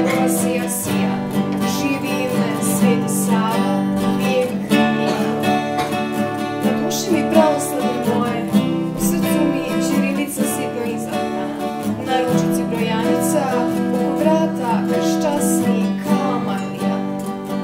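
Acoustic guitars strummed and plucked, accompanying a girl singing a slow song.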